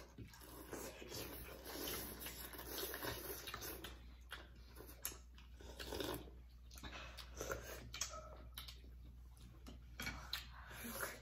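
People eating bowls of noodle soup: wet slurps and chewing, with chopsticks and spoons clicking against ceramic bowls now and then, over a faint steady room hum.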